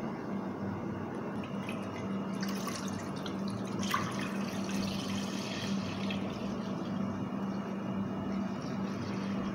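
Milk pouring in a steady stream from a plastic bottle into an aluminium pot, splashing as the pot fills. The pour starts a couple of seconds in.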